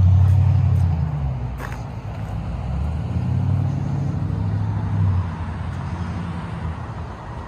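Road traffic: a vehicle's low engine hum fading away about a second in, then another vehicle passing a few seconds later.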